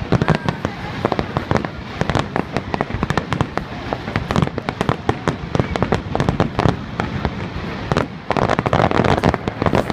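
Aerial fireworks going off in rapid succession, many sharp bangs overlapping with one another and with crackling. A thicker burst of crackling comes near the end.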